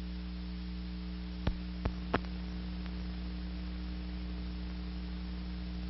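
Steady hum with an even hiss from an old 1946 newsreel's film soundtrack, broken by three sharp clicks about a second and a half to two seconds in.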